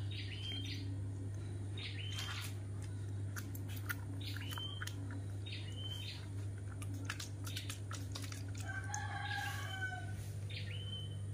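A rooster crows once, about nine seconds in, over short high chirps repeated about once a second and a steady low hum.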